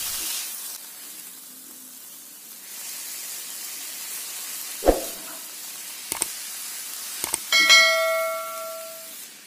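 Shredded omelette and vegetables sizzling faintly in a frying pan as a spatula stirs them, with a few sharp knocks of the spatula against the pan. Shortly before the end a bell-like metallic ring sounds and dies away over about a second and a half.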